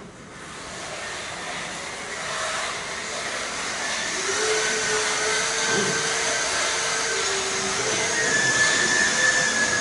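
Tracked bomb-disposal robot (NIC Instruments RAV) driving under remote control: its electric track motors give a steady whine of several tones over a hiss, growing louder over the first few seconds.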